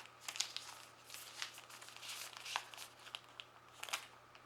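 Faint crinkling and rustling of small product packaging being handled, with scattered light clicks and taps.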